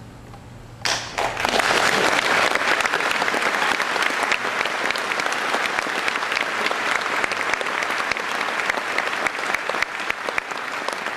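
Opera house audience applauding: a faint held low note, then many hands clapping together, starting suddenly about a second in and continuing steadily.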